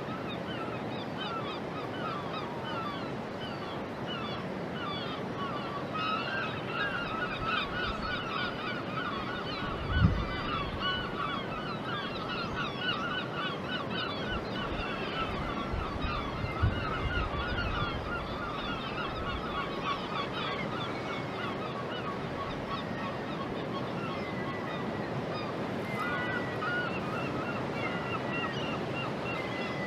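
A flock of birds calling: many short, overlapping calls, busiest through the middle and thinning toward the end, with two low thumps about ten and seventeen seconds in.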